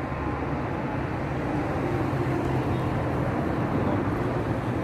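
Steady low rumble of motor traffic with a constant low hum, getting slightly louder about halfway.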